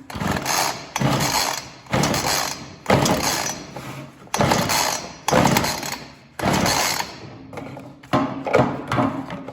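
Ryobi RY3714 two-stroke chainsaw being pull-started with the choke on: about eight rasping pulls of the recoil starter cord, roughly one a second, each fading away.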